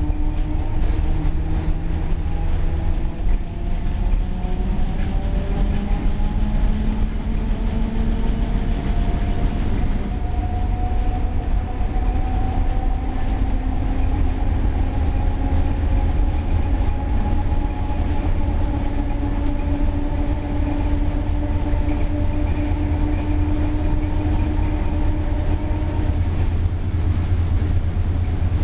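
Old FVV tram running, heard from inside the car. A steady low rumble comes from the wheels and body, and over it a whine rises slowly in pitch during the first half as the tram gathers speed, then holds steady.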